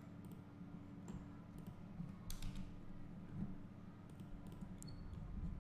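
Faint computer mouse clicks and scroll-wheel ticks, scattered a few times, over a low steady hum.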